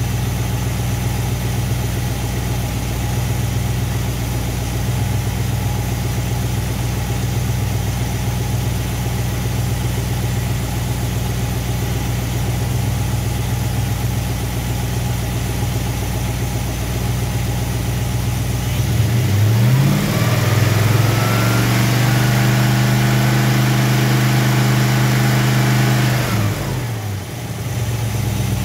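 Chrysler 360 small-block V8 idling steadily, then revved up about two-thirds of the way in, held at a higher speed for about six seconds, and let drop back to idle. The engine is being held at high rpm so total ignition timing can be read with a timing light.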